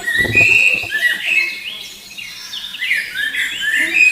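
Several small birds chirping in quick, overlapping calls, with a low muffled thump in the first half second.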